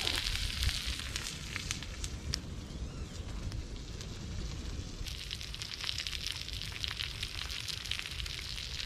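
Wood fire crackling and popping in a small folding metal twig stove. About five seconds in it gives way to a steady sizzle from the hot frying pan of fried eggs.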